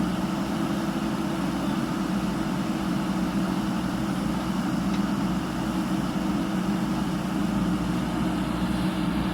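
JCB 3DX backhoe loader's diesel engine running steadily with an even, constant hum.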